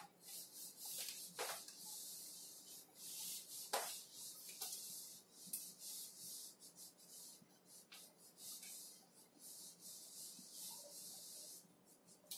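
Cloth wiping marker writing off a whiteboard: faint, high-pitched rubbing in uneven strokes, with a few light taps against the board.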